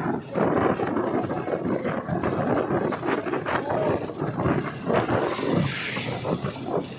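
Wind buffeting the microphone in uneven gusts, with a brief rise in hiss near the end.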